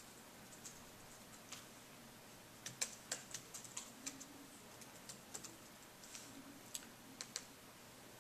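Typing on a laptop keyboard: faint, irregular key clicks, with a quick run of keystrokes about three seconds in and scattered taps after.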